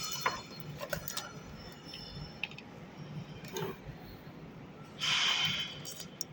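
Handling noise from unboxing safety shoes: scattered light clicks and taps, then a brief rustle about five seconds in.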